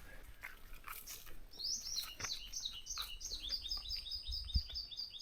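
A bird singing a fast run of short, high, downward-slurred notes, about five a second, starting about a second and a half in, with faint clicks and one low thump near the end.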